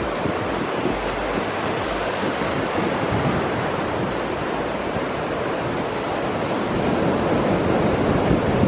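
Sea surf washing in steadily with wind buffeting the microphone, an even rushing noise with a low, gusty rumble that grows a little louder near the end.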